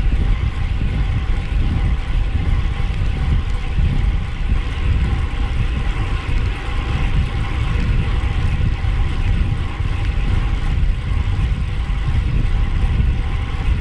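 Wind buffeting the microphone of a camera on a bicycle riding at speed: a loud, steady rumble of rushing air with a faint steady hum underneath.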